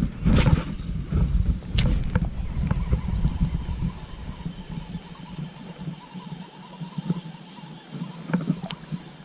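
River water moving around a wader, with wind rumbling on the microphone for the first four or five seconds, then easing. A few sharp clicks or knocks stand out, the clearest near the start.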